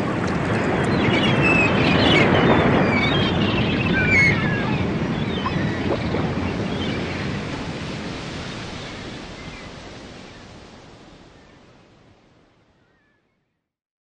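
Ocean surf: a steady wash of breaking waves, with a few high bird cries over the first few seconds, fading out to silence near the end.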